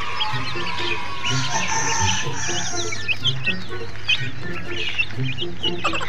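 A flock of chicks peeping, many short high chirps overlapping, over background music with a steady beat.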